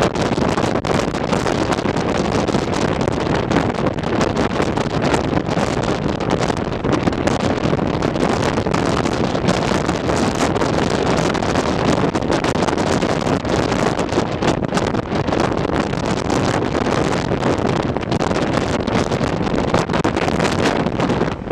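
Wind buffeting a microphone held out of the window of a moving train, over the steady running noise of the train.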